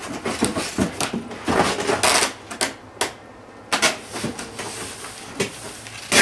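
Hands pressing and smoothing packing tape down onto a cardboard box: an uneven run of taps, rubs and crackles on the cardboard, with a sharp loud tap near the end.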